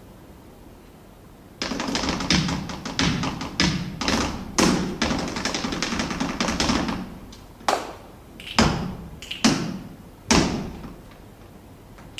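Flamenco footwork (zapateado) in flamenco shoes on a stage floor: a fast run of heel and toe strikes starts about a second and a half in and lasts around five seconds. It is followed by four single stamps, each about a second apart.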